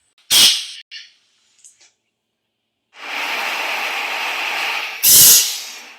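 A cat sneezing: one sharp sneeze about half a second in and another about five seconds in, the second over a steady hiss that starts about three seconds in.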